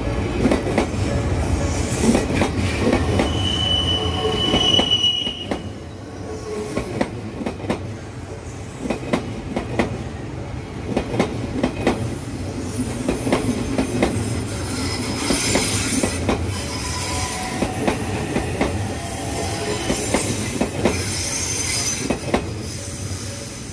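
Odakyu Line commuter train running through a level crossing: a dense rumble of wheels with sharp clicks as they cross the rail joints, and a high wheel squeal about four seconds in and again through the second half. The sound drops off near the end as the last car clears.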